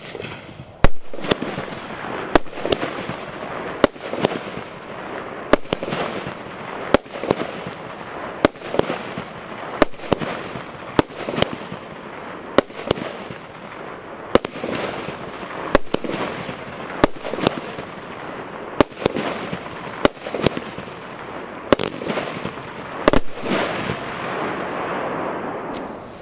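A 20-shot, 25 mm consumer firework battery (cake) firing shot after shot, with a sharp report about every half second to second over a steady noisy hiss. The reports stop about 23 seconds in and the hiss carries on a little longer.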